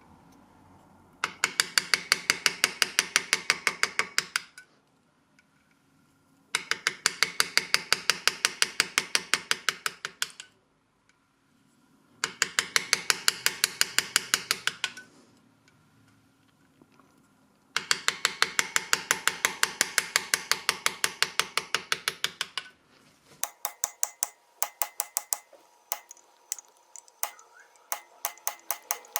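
Engraving tool working a brass buckle plate: four runs of rapid metallic taps, about ten a second, each lasting about three seconds with short pauses between. Near the end come slower, irregular taps with a light metallic ring.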